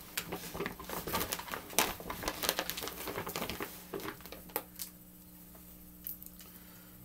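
A shopping bag rustling and crinkling with small knocks as someone rummages through it and pulls out a can. The rustling is busy for about five seconds, then dies down.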